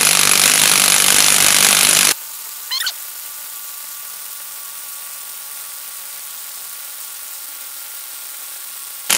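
HPT MA20-IW155N brushless cordless impact wrench hammering continuously against a nut preloaded to 2,000 psi on a hydraulic torque tester, trying to break it loose. It cuts off suddenly about two seconds in, leaving a much quieter stretch of faint steady tones with a short warbling chirp about a second later.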